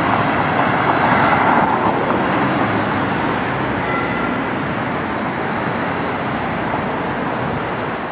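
Road traffic on a city street: cars passing close by, loudest about a second in, then a steadier rush of traffic.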